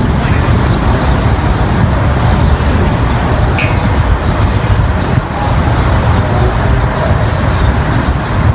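Loud, steady rushing noise of a thunderstorm, with a heavy, fluctuating rumble.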